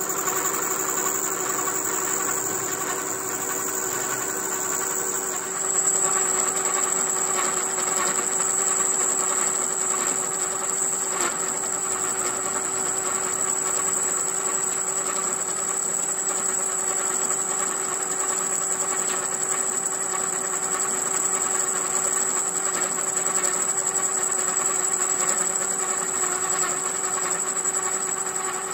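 Metal lathe running with a steel workpiece spinning in the chuck: a steady mechanical whine with a high, thin tone over it, getting louder about five and a half seconds in.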